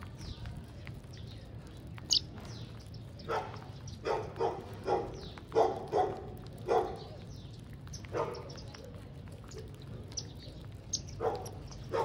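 Repeated short calls from a larger animal, in small groups of two or three, with a few brief, high, thin chirps from small birds, one about two seconds in and another near the end.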